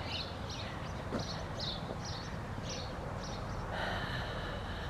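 Outdoor ambience: a small bird chirps over and over above a low, steady rumble. About four seconds in, a short steady tone sounds for roughly a second.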